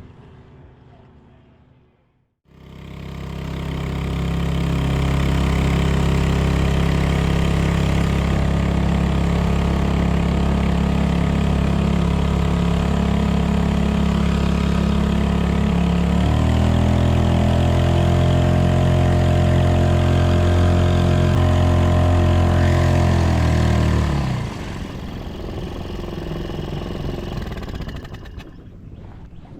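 A boat's outboard motor runs steadily after coming in about two seconds in. About halfway through it speeds up to a higher pitch for several seconds, then drops back to a lower, quieter run near the end.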